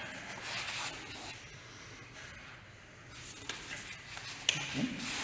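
Soft rubbing and rustling of two people's arms and clothing in hand-to-hand sparring practice, with a couple of light taps and a short low voice sound near the end.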